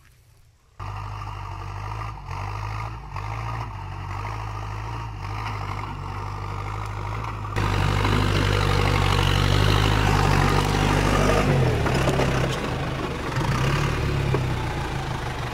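Farm tractor's diesel engine running steadily as it works a plow, heard close up. It comes in about a second in, grows louder and rougher about halfway through, and dips a little in pitch later on.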